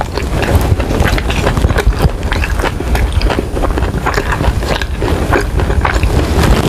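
Close-miked chewing of a sauce-glazed chicken wing: a dense run of short clicks and crunches over a low rumble.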